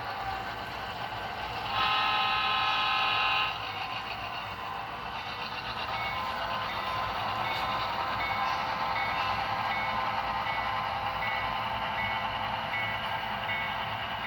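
Soundtraxx sound decoder in an Athearn Genesis F7 model diesel locomotive playing engine sound. A multi-note air horn blast sounds about two seconds in and lasts about a second and a half. From about six seconds the locomotive bell rings steadily, about two strikes a second.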